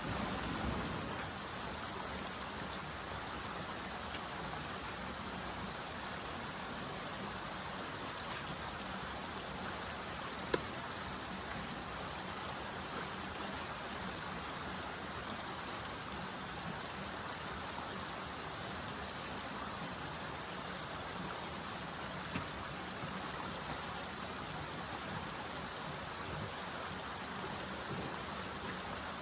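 Steady rush of flowing stream water, with a single sharp click about ten seconds in.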